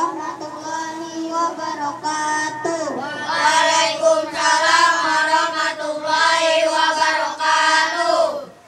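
Children singing a sholawat (Islamic devotional song) together into microphones, unaccompanied, in long held, ornamented melodic lines. The singing grows louder about three seconds in.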